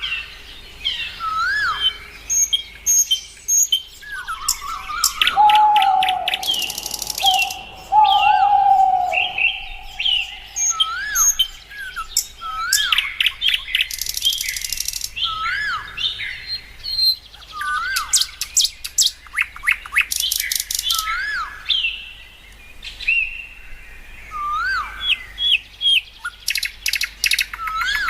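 Several birds singing: a short whistled note that rises and falls, repeated every couple of seconds, mixed with bursts of rapid high trills. A lower, steadier whistle is held for a few seconds near the middle.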